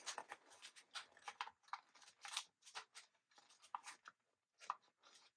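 Faint, irregular crinkling and rustling of a chip bag and its glossy printed paper wrap being handled and slipped between the rollers of a hand paper crimper.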